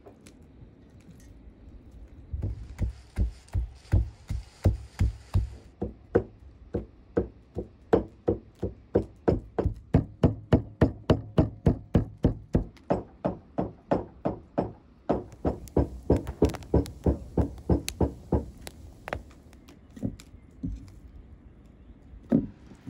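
A knife chopping raw lamb into mince on a wooden stump chopping block: a steady run of sharp thuds, about three a second, starting a couple of seconds in and stopping a few seconds before the end, followed by a few single chops.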